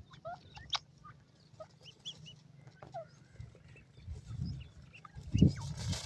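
Grey francolins dust-bathing: many short, soft chirps and clucks scattered throughout, over low scuffling thumps of wings and bodies working in the dry dirt, the loudest of these near the end.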